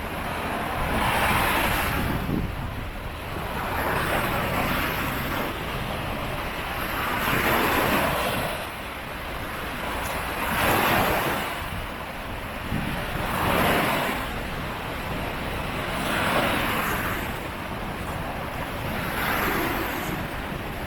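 Ocean waves breaking and washing up the beach, the surf swelling and fading about every three seconds. Wind rumbles on the microphone underneath.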